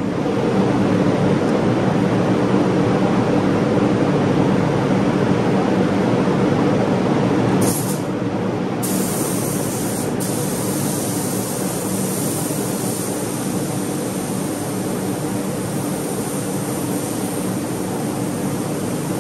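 Paint spraying: the steady rushing hiss of a paint spray gun laying on a coat, over a low motor hum. The level drops slightly about eight seconds in.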